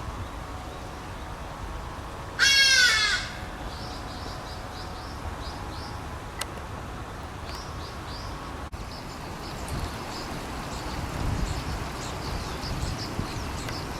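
A large bird gives one loud, harsh, crow-like caw about two and a half seconds in, while small birds make short high chirps again and again over a steady low rushing background.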